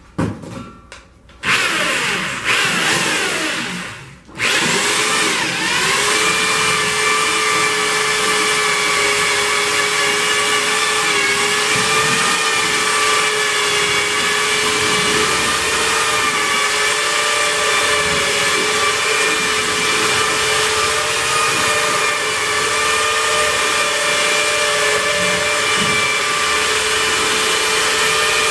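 Electric drill with a paddle mixer stirring cement-based tile adhesive in a metal tub. It runs briefly in the first few seconds and stops, then spins up about four seconds in and runs steadily, its whine wavering slightly.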